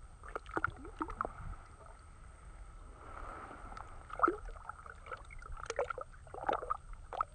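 Water splashing and sloshing in an ice-fishing hole as a hand lets a big bluegill go: a string of short, irregular splashes, the loudest about four and six seconds in.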